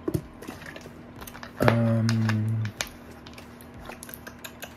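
A man drinking from a plastic water bottle: a swallow right at the start, then a loud, low, steady vocal sound about a second long from the drinker. Light clicks and crackles of the plastic bottle run throughout.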